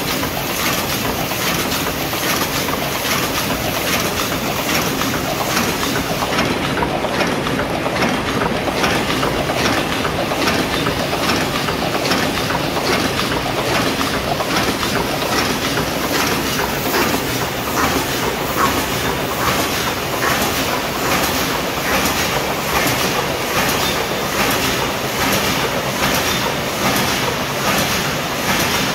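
Paper cup forming machine with a hot-air sealing unit running at speed, a steady, rhythmic mechanical clatter of evenly repeating strokes as it forms cups.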